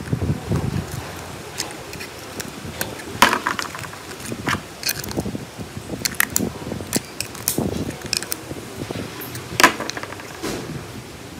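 Screwdriver and fingers working on a plastic security camera's pan gear and housing: irregular sharp clicks, knocks and scrapes of plastic parts being handled and pried apart.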